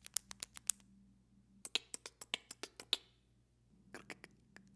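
Rapid sharp mouth clicks in three bursts: a quick run, a second run after a short pause, and a few more near the end. They are a beatboxed imitation of a school-supply sound, described as 'so many clicks.'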